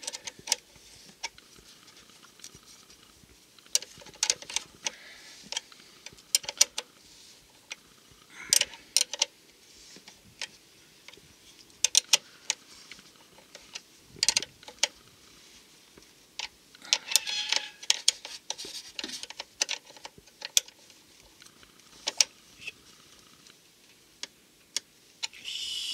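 A wrench tightening the nut on a car battery's negative terminal clamp as the cable is reconnected: scattered sharp metallic clicks and taps, with a few short scraping bursts.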